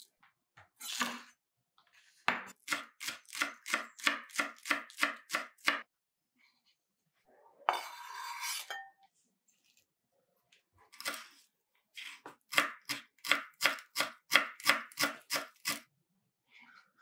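Kitchen knife chopping green onion and then parsley on a bamboo cutting board: two runs of quick, even strikes, about three to four a second. Between them, a brief scrape as the chopped onion is slid off the board into a bowl of egg.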